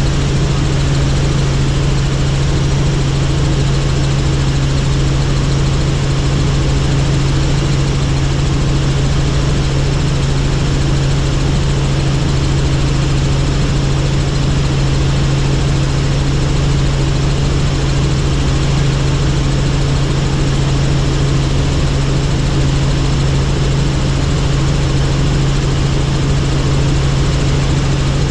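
Helicopter running, a steady loud drone of turbine engine and rotors with a strong unbroken low hum.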